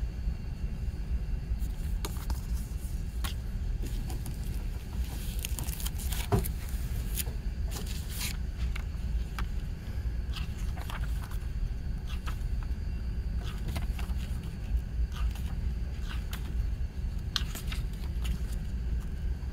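Paper inserts and a booklet being handled and leafed through: scattered light rustles and clicks of paper, over a steady low background rumble.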